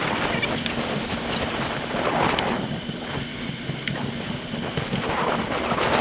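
Wind rushing over a bicycle handlebar-mounted action camera's microphone while riding, with road noise and scattered sharp clicks and rattles from the bike and mount.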